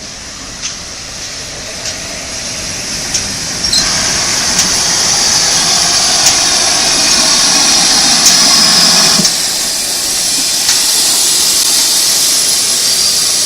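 Steam locomotive letting off steam: a loud hiss swells up about four seconds in over a low rumble, then drops back sharply about nine seconds in.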